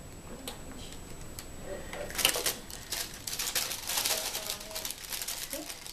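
Plastic shrink film crinkling and the arm of a hand-press impulse heat sealer clacking down and up as the film around a soap bar is sealed. Irregular clicks and rustles, loudest about two seconds in.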